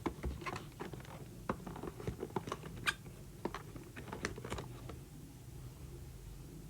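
Irregular light clicks, taps and rustles of a perfume gift set's packaging and bottles being handled and unpacked, mostly in the first five seconds.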